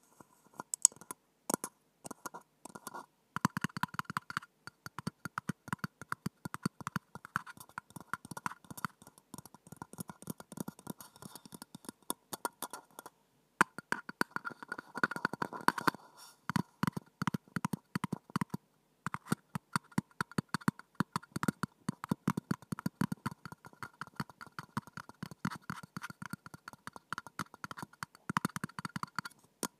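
Fingertips tapping rapidly on a clear drinking glass held right at the microphone, many taps a second, with a steady ringing note from the glass underneath. The tapping stops briefly just after the start, about halfway through and about two-thirds through.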